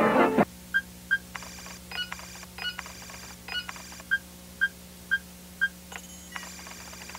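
A music sting cuts off about half a second in. Then a cartoon computer-readout sound effect plays: short electronic beeps, roughly two a second, mixed with clusters of rapid high-pitched chirps, over a low steady hum.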